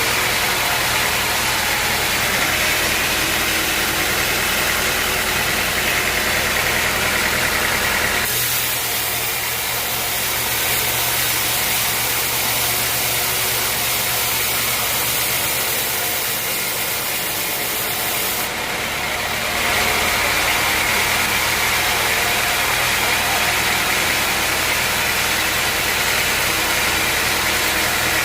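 Sawmill machinery running steadily: a constant motor hum with a higher band of noise above it. The sound changes abruptly about eight seconds in and again about twenty seconds in.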